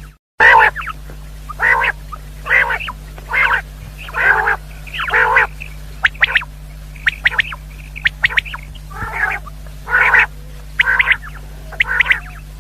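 Common quail calling over and over, short rasping notes about one and a half a second, some given as quick double clicks. A steady low electrical hum runs underneath, and the sound cuts out briefly just after the start.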